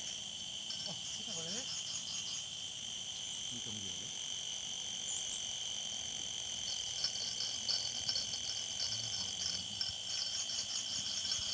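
Outdoor chorus of insects and frogs: several steady high-pitched drones run on. Over them a rapid pulsing trill comes in about a second in and again from about seven seconds, with a few faint low calls early on.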